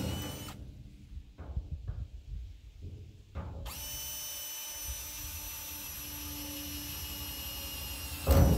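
Power drill boring drainage holes through the galvanized steel bottom of a livestock water trough. A few short knocks come first, then the drill runs with a steady whine from about three and a half seconds in, and a loud grinding burst near the end as the bit bites into the metal.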